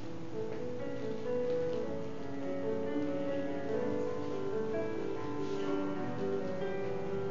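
Slow, gentle instrumental background music of long held notes shifting from one to the next.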